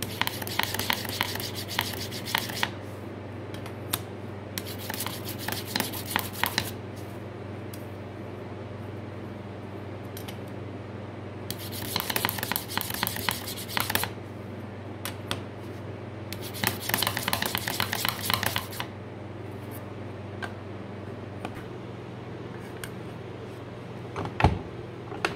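A hardened steel burnisher rubbed in quick strokes along the edge of a flat steel cabinet scraper, flattening the old burr before filing. The rubbing comes in four bouts of about two seconds each, and a single sharp knock comes near the end.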